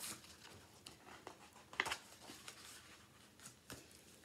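Paperback picture book being handled and its pages opened: soft, scattered paper rustles and small taps, the loudest about two seconds in.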